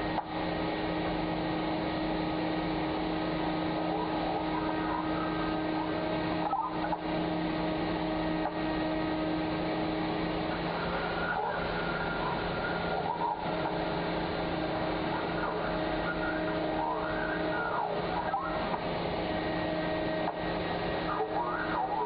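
Steady drone of underground mine vehicles and machinery, a dense hum with a few held pitches that shift several times, with faint voices now and then.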